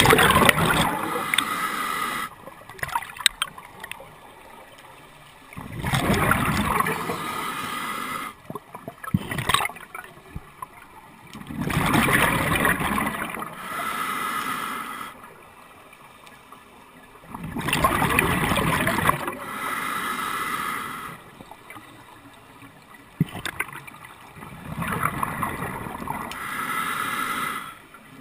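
Scuba diver breathing through a regulator close to the camera: a rush of exhaled bubbles about every six seconds, five times, with quieter gaps between.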